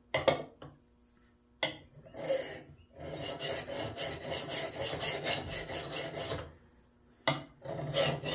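Craftsman hand file scraping across the edge of a Craftsman axe head: a few short strokes, then a run of quick, even strokes from about three seconds in, a short pause, and more strokes near the end. The axe steel is very hard, and the file is barely cutting it.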